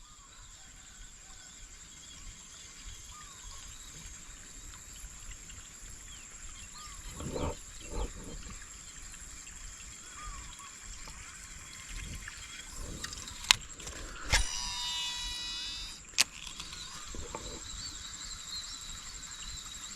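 Outdoor rural ambience: a steady high-pitched insect drone with scattered faint chirps, broken by a few sharp clicks and knocks and a brief buzzing tone a little past halfway.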